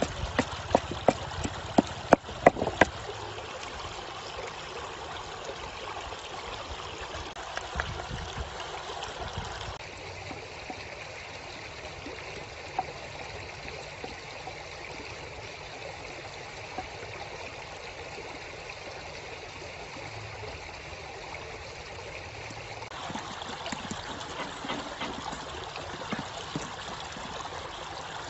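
A wooden pestle pounds chilies and garlic in a clay mortar, a quick run of sharp knocks over the first few seconds. Then steady flowing river water runs for the rest.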